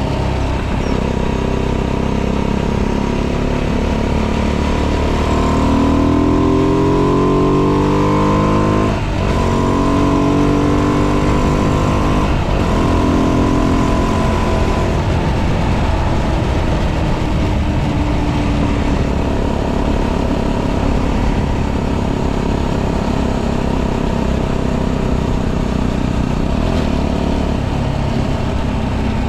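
Tuned 125cc motorcycle engine, with modified intake and exhaust and ignition advanced to 42 degrees, pulling hard under acceleration. Its pitch rises for several seconds, breaks briefly about nine seconds in and again about three seconds later, then holds steady at cruising speed over a constant rush of wind.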